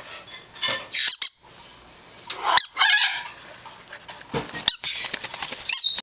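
Young parrots calling with short squawks and chirps: a rough call about a second in and a longer, wavering call near three seconds. Sharp clicks follow, then a quick run of ticks and a high chirp at the end.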